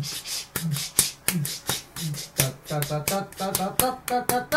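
A person beatboxing: a steady rhythm of sharp mouth clicks with low vocal booms, joined by short pitched vocal notes from about halfway.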